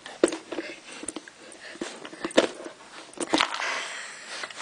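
German shepherd gnawing and mouthing a hard plastic Kong Wobbler treat puzzle, teeth and toy giving irregular sharp clacks and knocks, with a breathy sniffing rush a little past three seconds in.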